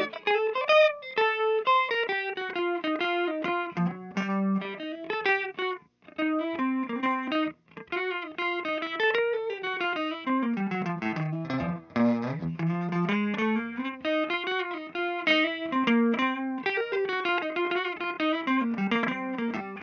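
Music: a lead guitar playing a quick melodic line of changing notes, with some sliding up and down in pitch.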